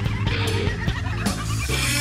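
Live rock band playing an instrumental passage on electric guitar and drums, with sustained low notes under repeated drum hits and a cymbal wash building near the end.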